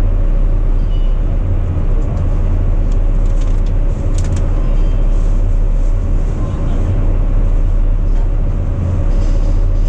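Sightseeing boat's engine running steadily, a loud, even low drone heard aboard.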